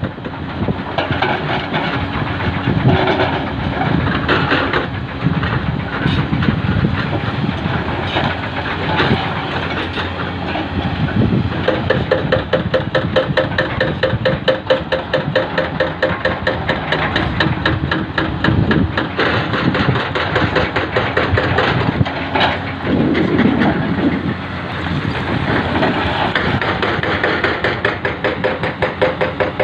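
Hidromek HMK 300 crawler excavator's diesel engine running under load while it digs, with a dense clatter of knocks and clicks from rock being worked in the pile.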